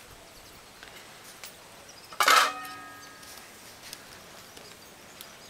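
A single sharp strike about two seconds in that rings on with a few steady tones, fading over about a second, over faint background noise.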